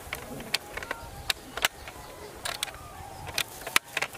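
A dozen or so short, sharp clicks and ticks at irregular intervals over a faint, steady outdoor background.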